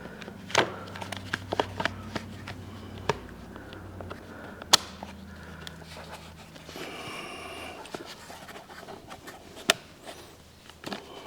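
Scattered clicks and light knocks of garbage disposal parts being handled and pressed together by hand, with a short scrape about two-thirds of the way in, over a low steady hum.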